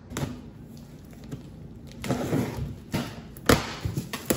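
Cardboard shipping box being opened by hand: the flaps rustle and scrape, with several sharp knocks against the box, the loudest about three and a half seconds in.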